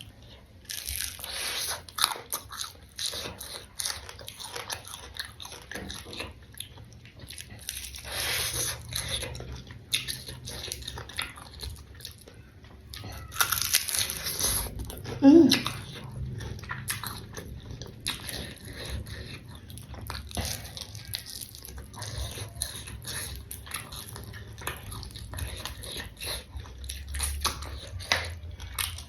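Close-miked eating of fried carp with sambal: repeated irregular crunchy bites and chewing. About halfway through comes a short low hum.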